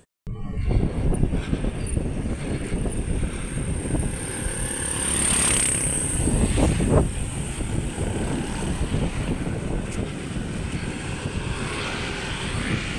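Wind buffeting the microphone of a camera on a bicycle rolling downhill, a loud steady rumble, swelling louder for a couple of seconds around the middle.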